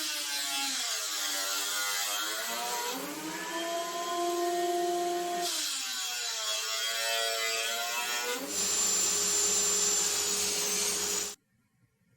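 Electric woodworking power tool running, its motor whine falling and rising in pitch as it slows and speeds up, in several short stretches with abrupt changes between them; it cuts off suddenly near the end.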